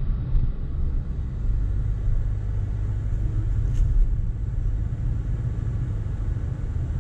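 Steady low rumble of a car driving slowly along a town street, heard from inside the cabin: engine and tyre noise. A faint click about four seconds in.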